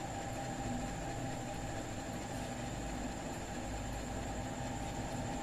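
Steady background hum and hiss of room noise, with a low rumble and faint steady tones running throughout, like a fan or air conditioner.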